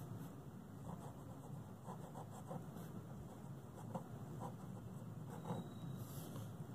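Faint scratching of a pen writing on paper, a few short strokes, over a low steady background hum.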